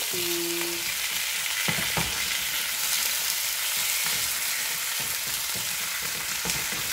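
Marinated beef slices sizzling as they fry in a pan, a steady hiss. A wooden spatula turning the meat knocks against the pan a couple of times about two seconds in.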